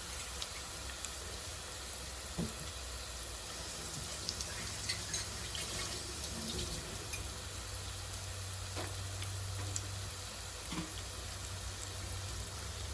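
Marinated chicken pieces deep frying in hot oil: a steady sizzle with scattered small crackles and pops.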